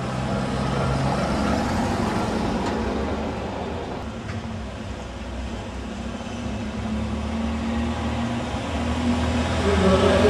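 Classic cars driving slowly past over cobblestones, their engines running with a steady low hum. Near the end an open-top sports car passes close and its engine gets louder.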